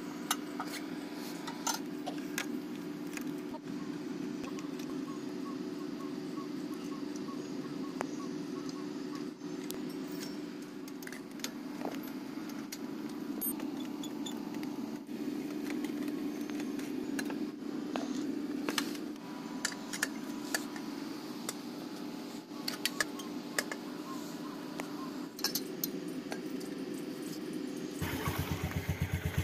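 Metal tools clinking and tapping against a moped's frame and fittings while parts are bolted on, over a steady low hum. Near the end the sound switches to a small engine idling with an even beat.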